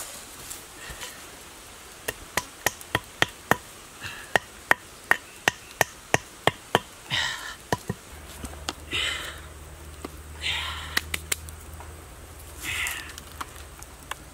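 Bamboo being struck: a run of sharp knocks, about three a second for some six seconds, followed by a few short rustling scrapes.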